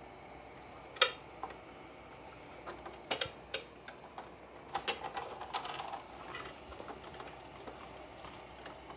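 Live rock crabs moving about in a pot: scattered clicks and taps of shells and claws against each other and the pot, with a sharper knock about a second in and small clusters of clicks around three and five seconds in.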